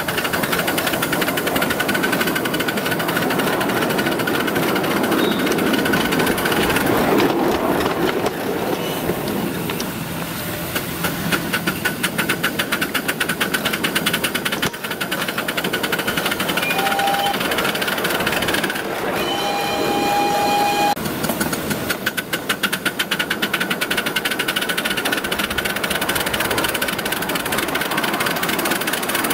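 5-inch gauge 0-6-2 Sweet Pea–type miniature live steam locomotive running under steam, its exhaust beating in a rapid, even chuff. A steady pitched tone sounds for about two seconds past the middle.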